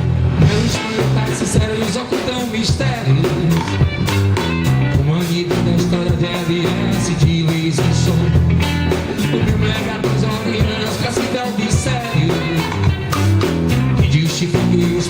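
Live band playing an upbeat dance song, with a driving drum beat, a busy bass line and guitar.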